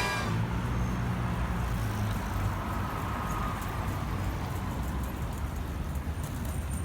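Outdoor city ambience: a steady rumble of road traffic.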